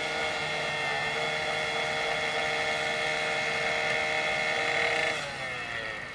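Power saw's small engine held at full throttle, its pitch high and steady, then dropping back as the throttle is released about five seconds in.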